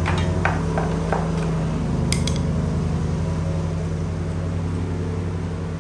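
A tool scraping and clinking against the metal underside of a mower deck to clear packed grass: a run of sharp scrapes and taps in the first second, then a bright metallic clink about two seconds in. A steady low mechanical hum goes on underneath.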